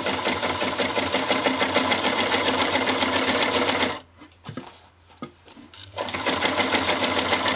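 Old Jones electric sewing machine stitching canvas, its needle running in a fast, even rhythm. It stops about four seconds in, with a couple of faint clicks in the pause, and starts again about two seconds later.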